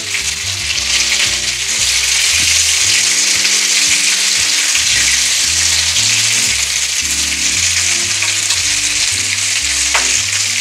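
Cornmeal-coated green tomato slices shallow-frying in hot oil in a pan: a loud, steady sizzle.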